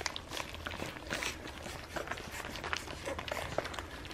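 A litter of American bully puppies licking, sucking and chewing on raw chicken, a busy run of quick, irregular wet smacks and clicks.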